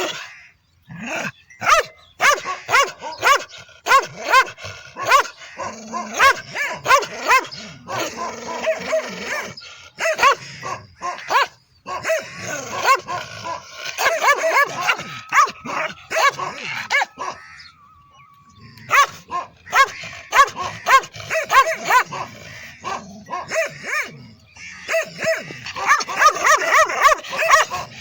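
Dog barking in fast runs of short, sharp barks, several a second, with a short lull about two-thirds of the way through.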